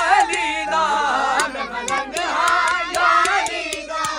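A close crowd of boys and men shouting and chanting together, many voices at once, with scattered sharp claps.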